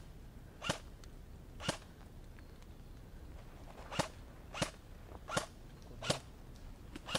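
Airsoft guns firing single shots: about seven sharp cracks, a few in the first two seconds, then a quicker string of five after a short pause.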